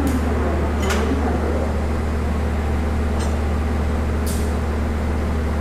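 CC201 diesel-electric locomotive idling at close range: a steady low engine drone with a hum above it. A couple of sharp clicks come about one and three seconds in, and a short hiss just after four seconds.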